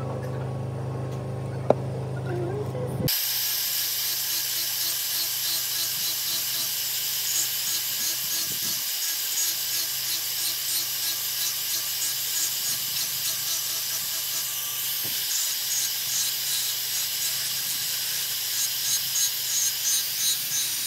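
A low hum with a sharp click, then an abrupt change about three seconds in to a steady hissing, rubbing noise of work on a part, with rhythmic strokes growing louder near the end.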